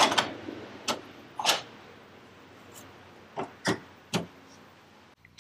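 About half a dozen separate clicks and knocks of parts being handled and set down while the dash is assembled, spaced irregularly over a quiet background. A steady mechanical whirr cuts off just at the start.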